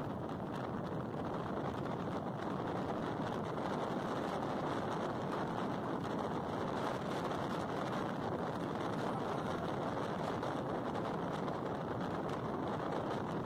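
Steady wind and road noise of a passenger van driving at speed on a highway, an even rush with no breaks.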